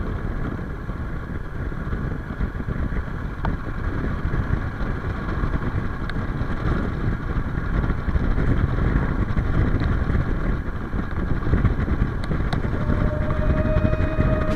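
Suzuki XF650 Freewind's single-cylinder engine running at road speed, heard with wind rushing over the chest-mounted camera's built-in microphone. It gets louder from about halfway through.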